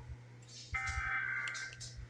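Emergency Alert System SAME header burst: a harsh, buzzing data tone that switches rapidly between two high pitches, starting about three quarters of a second in and lasting just under a second. It is one of the repeated header bursts that open a Required Monthly Test.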